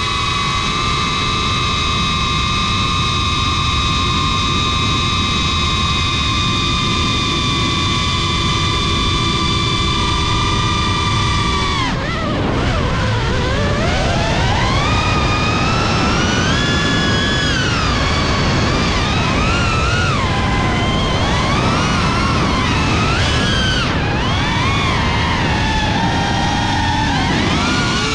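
GEPRC Cinelog35 cinewhoop's brushless motors and ducted propellers whining. The pitch holds steady at constant throttle for about twelve seconds, drops sharply, then swoops up and down as the throttle is worked through a dive.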